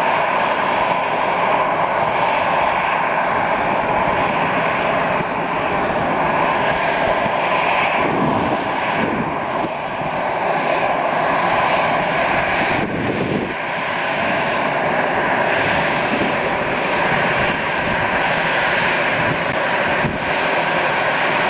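Airbus A320 jet engines running, a loud steady noise with a faint steady whine in it, easing off a little about halfway through and then coming back.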